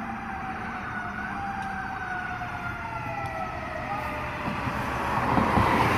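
Fire apparatus siren wailing from a distance, its pitch gliding slowly downward. A car passes close by about five seconds in, with a rush of tyre and engine noise.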